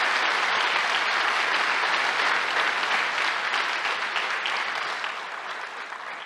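A large audience applauding, steady at first and fading away near the end.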